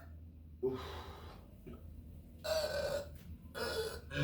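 A man's short breaths and gasps, in brief bursts about two and a half and three and a half seconds in.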